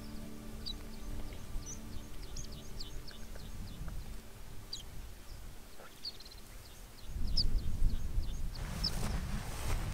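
Wind buffeting the microphone with scattered short, high chirps of small birds; the wind grows louder about seven seconds in.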